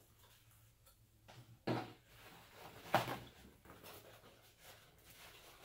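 Paper towel rustling as it is picked up and unfolded, with a couple of short sharp crackles, the loudest about three seconds in.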